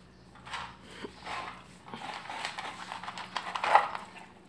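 A puppy sniffing and breathing close to the microphone, in irregular breathy bursts that are loudest near the end.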